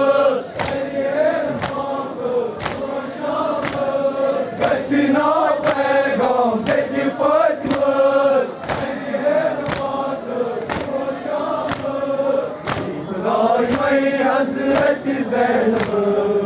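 A crowd of men chanting a Muharram noha together, with a sharp slap about once a second in time with the chant: mourners beating their chests in matam.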